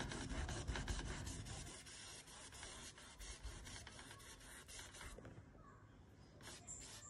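Paintbrush bristles rubbing and scratching across canvas as acrylic paint is brushed on, a faint scratchy sound with small ticks that fades after about five seconds.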